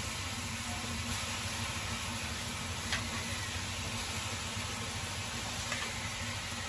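Leafy greens in a hot wok over a wood fire, hissing and sizzling steadily, with a couple of faint ticks.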